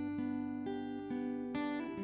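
Background music: a slow, calm melody of single plucked notes that ring on, a new note every half second or so.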